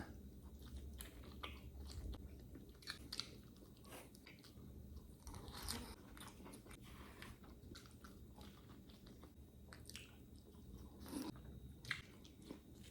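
Faint eating sounds: a person biting and chewing food, with scattered soft crunches and clicks.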